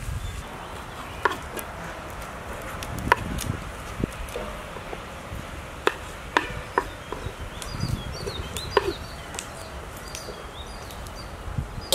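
Scattered knocks and clinks of cooking vessels and utensils being handled, a few with a short metallic ring. Small birds chirp faintly in the second half.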